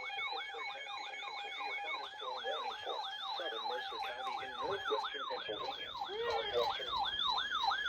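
Electronic siren yelping: quick rising sweeps repeating about three times a second. A steady tone sounds beneath it for roughly the first five seconds, then stops.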